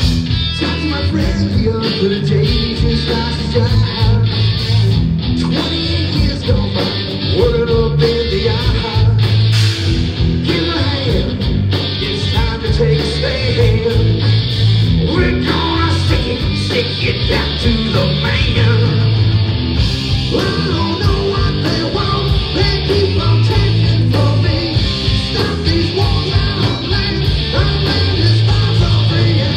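Rock band playing live, heard from the audience in a club: distorted electric guitar and drum kit, with singing at times.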